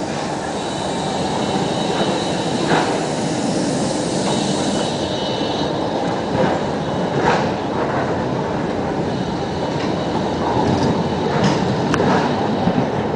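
A street tram passing close by on grooved rails set in cobblestones, a steady rolling rumble of wheels on track. A thin, high wheel squeal runs through the first half, and a few short clacks come from the wheels over the rails.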